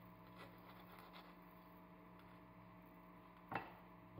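Mostly near silence over a faint steady hum, with a few light crackles as a metal table knife cuts open crisp baked choux éclair shells. About three and a half seconds in comes a single sharp knock as the knife is set down on the paper-covered board.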